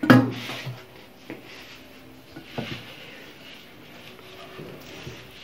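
Hands mixing flour and warm water into a shaggy dough in a ceramic bowl: soft, quiet rubbing and squishing, with a brief bump right at the start.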